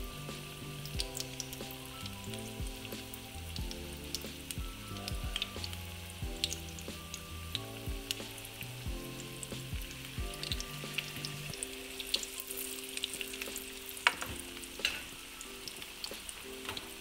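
Hot oil in a wok sizzling steadily around rings of grated cassava dough as they deep-fry, with scattered sharp crackles and pops, two of them louder near the end. Background music plays along.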